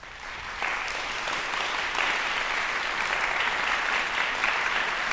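Audience applauding, rising to full strength about half a second in and holding steady.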